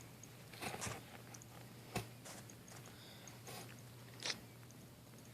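Faint, scattered wet smacks and clicks of a Chihuahua mother chewing and licking, with sharper clicks about two seconds and four seconds in.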